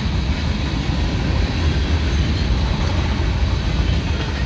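Freight train cars, covered hoppers and a boxcar, rolling past at speed: a steady low rumble with wheel noise on the rails.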